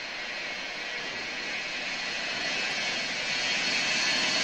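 Boeing 707's four Pratt & Whitney JT3D turbofans running at high power as the jet rolls down the runway, a loud jet noise with a steady high whine on top, growing louder as it approaches.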